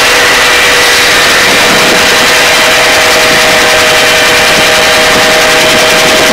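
Helicopter hovering: loud, steady engine and rotor noise with constant high whining tones.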